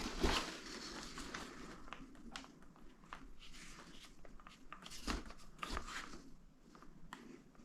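Packaging rustling with light scattered clicks and knocks as a crossbow and its magazine are handled in a cardboard delivery box, with a louder knock about five seconds in.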